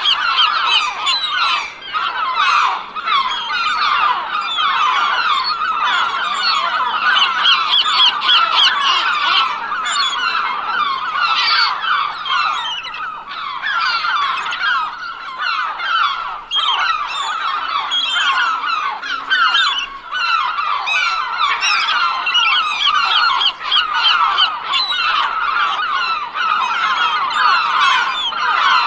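A flock of geese honking, many birds calling at once in a dense, continuous, overlapping chorus.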